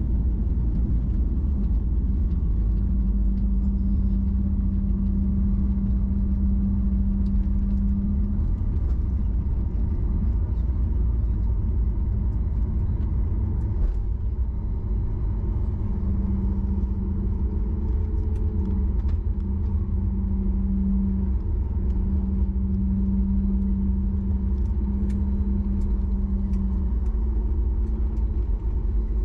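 Steady low rumble inside an airliner's cabin. A low hum joins in about three seconds in, drops out, and returns for most of the second half.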